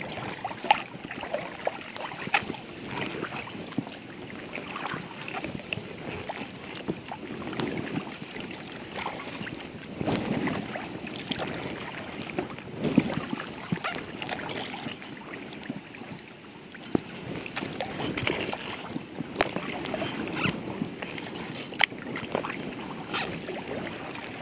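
Sea kayak paddling: double-bladed paddle strokes swishing through the water, with splashes, sharp drips and water lapping at the hull.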